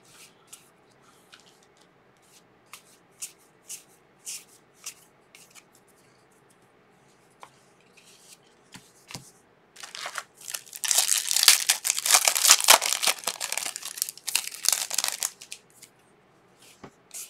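Trading cards handled with soft flicks and slides. About ten seconds in, a foil trading-card pack wrapper is torn open and crinkled loudly for about five seconds.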